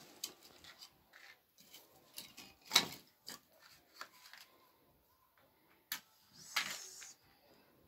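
Wooden kindling sticks being handled and fed into a small floor stove: scattered wooden knocks and clicks, the loudest about three seconds in, and a brief rustling noise near the end.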